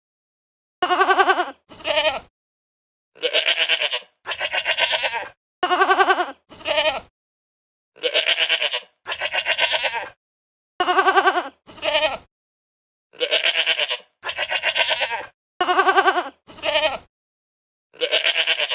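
Livestock bleating over and over: about seven pairs of wavering bleats, each pair a longer call followed by a short one, with brief silences between.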